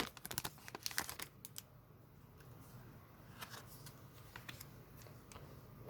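Faint handling of Pokémon trading cards fresh out of a booster pack: soft clicks and slides of the cards being leafed through, busiest in the first second or so, then only a few.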